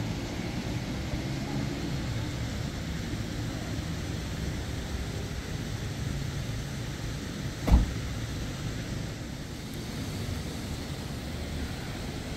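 Steady low rumble of a running vehicle, with one thump about eight seconds in.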